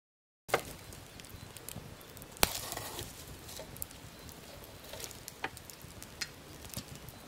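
Wood campfire crackling, with a steady low hiss and scattered sharp pops, the loudest about two and a half seconds in. It starts after half a second of silence.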